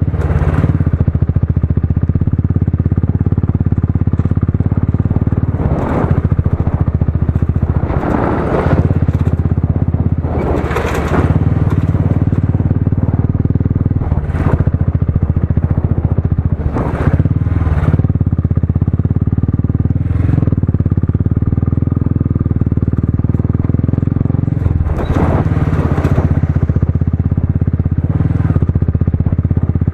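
Motorcycle engine running steadily while riding over a rutted dirt track, with several short bursts of rushing, scraping noise from the wind and the rough ground.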